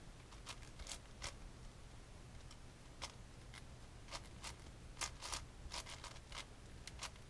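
Plastic 7x7 Rubik's cube being turned by hand: faint, irregular clicks and scrapes of its layers snapping round, a dozen or so at uneven intervals.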